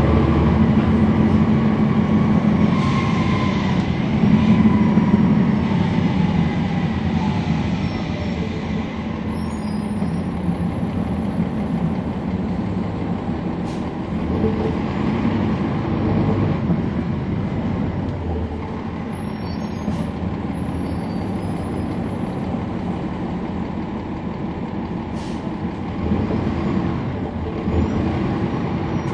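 Cummins ISL9 diesel engine of a NABI 40-SFW transit bus running under way, heard from inside the bus, with a whine that falls in pitch over the first few seconds.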